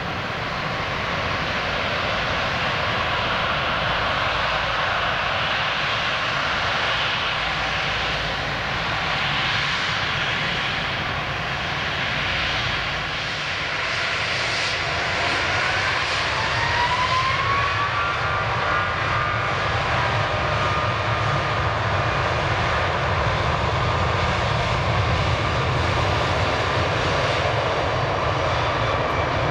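Boeing 777-200ER's twin turbofan engines heard at close range, a continuous jet rumble and hiss. About halfway through, a whine rises and then holds steady as the engines spool up toward takeoff thrust.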